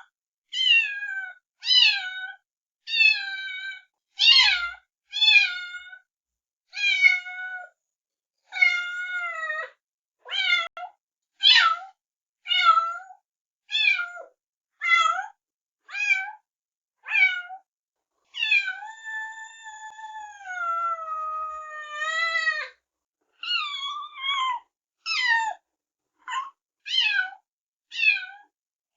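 Kittens meowing: high, thin calls about one a second, with one long drawn-out meow about two-thirds of the way through.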